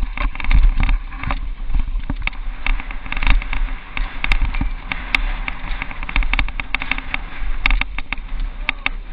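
Mountain bike descending a rough dirt downhill trail, recorded from a camera riding along: constant irregular clattering and knocking as the bike and camera rattle over bumps, over a steady deep rumble of wind on the microphone.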